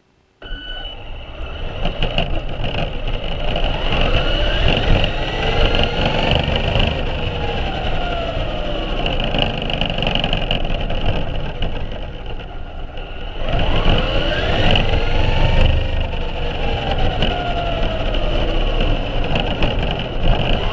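Radio-controlled car's motor whining in pitches that rise and fall as it speeds up and slows, over a steady rumble of its tyres on pavement. It eases off briefly about two-thirds of the way through, then picks up again.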